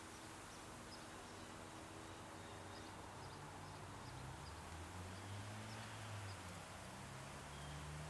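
Faint outdoor ambience: a low, distant motor hum that shifts in pitch and grows a little louder from about halfway through, with scattered faint high chirps over a steady hiss.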